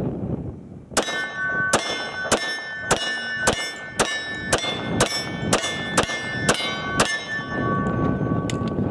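H&K Mark 23 .45 ACP pistol fired twelve times in steady succession, about two shots a second, with a ringing clang after each hit that sounds like steel targets being struck.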